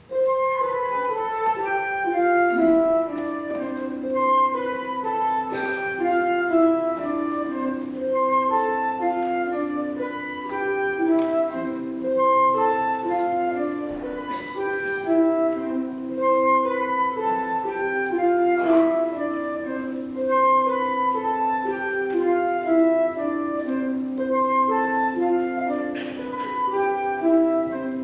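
Pipe organ playing, starting suddenly and holding steady overlapping notes that step from pitch to pitch.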